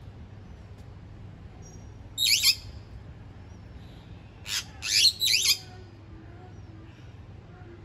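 Bali myna giving loud, harsh calls: one about two seconds in, then a cluster of three around five seconds in.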